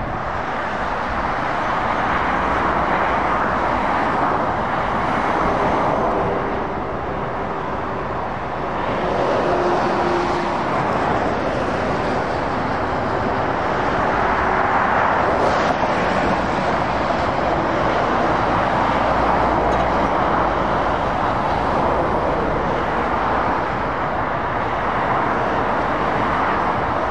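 Dual-carriageway traffic of lorries and cars passing by: a continuous rush of tyre and engine noise that swells and fades as each vehicle goes past.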